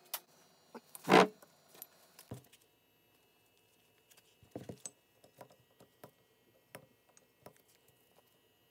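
Metal objects handled and set down on a hard surface: a loud metallic clank about a second in, then scattered lighter clinks and taps.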